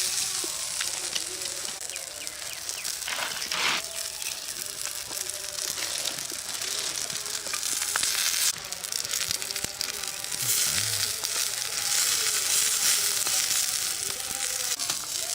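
Food frying in hot oil, a steady crackling sizzle, with a brief louder flare about three and a half seconds in.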